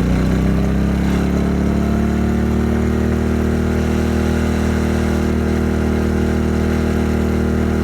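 Westinghouse iGen2500 inverter generator's engine speeding up as a heat gun load comes on. Its pitch rises over the first two seconds or so, then it runs steadily at the higher speed under load.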